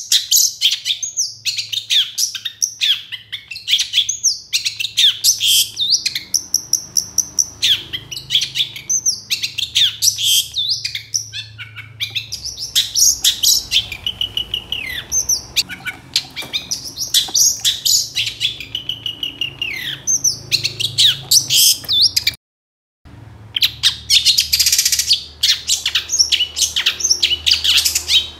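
Long-tailed shrike (cendet) singing a continuous, rapid song of high chirps and warbled phrases, breaking off for about half a second a little past two-thirds of the way through before carrying on.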